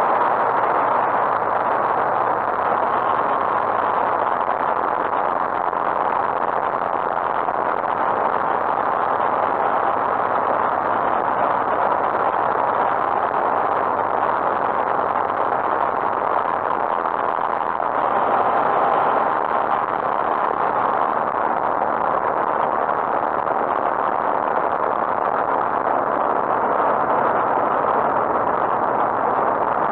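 Lightwing GR912 light aircraft's Rotax 912 engine and propeller running steadily in cruise flight, heard from inside the cockpit.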